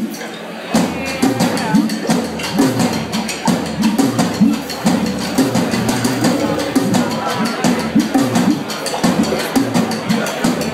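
Live rock band playing on stage, picked up by a phone microphone in the audience: a drum kit keeping a steady beat under electric guitars and bass. The band kicks in under a second in, cutting over crowd chatter.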